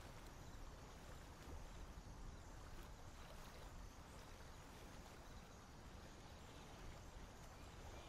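Near silence: a faint, steady background hiss with a low rumble, and no distinct calls or splashes.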